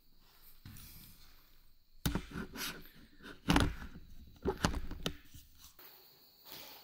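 About five sharp knocks and thumps, irregularly spaced over about three seconds, the loudest about three and a half seconds in.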